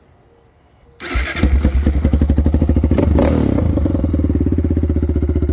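A 2003 Yamaha Raptor 660's single-cylinder four-stroke engine, fitted with a White Brothers exhaust, starting up about a second in on its first start of the day. It catches at once and settles into a steady, evenly pulsing idle.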